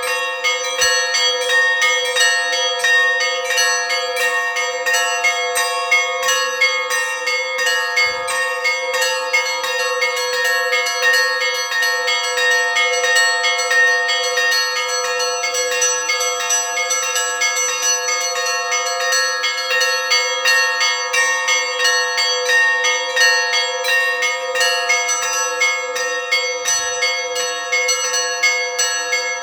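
Russian Orthodox church bells ringing a festive Christmas peal: many small bells of different pitches struck rapidly and without pause, over the steady ring of deeper bells.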